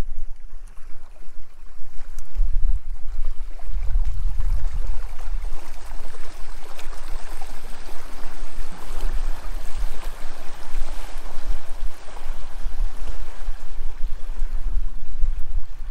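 Gusting wind buffeting the microphone as an uneven rumble, over small waves lapping at the lakeshore.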